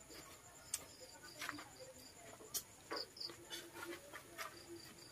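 Quiet eating sounds: scattered soft clicks and knocks of hands picking food off a banana leaf and of chewing. A faint, evenly pulsed high chirping of insects runs behind them.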